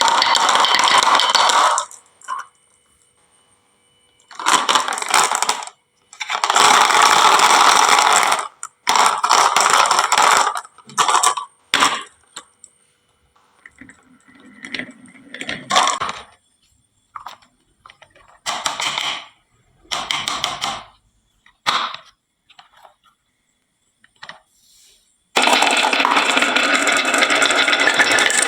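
Marbles rolling and clattering down a wooden marble run, in bursts of one to two seconds with short silent gaps between them, and a longer continuous clatter near the end.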